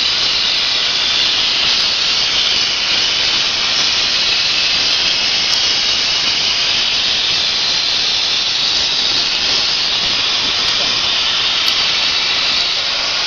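Portable CNC plasma cutter's torch cutting, with a steady, loud, high hiss.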